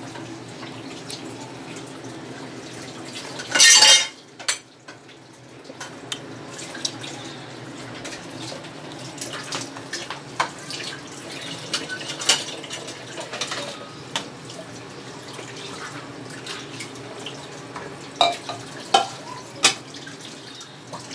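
Kitchen clatter: dishes and cutlery clinking and knocking now and then, with a short loud rush of noise about four seconds in and a few sharper clinks near the end.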